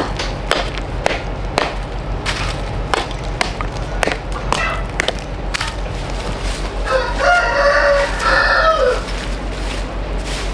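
A rooster crows once, a drawn-out call of about two seconds starting some seven seconds in. Irregular sharp knocks and clicks sound throughout.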